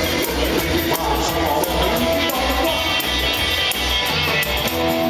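Live rockabilly band playing with a steady driving beat, guitar and a lead singer. Near the end the band holds a long chord.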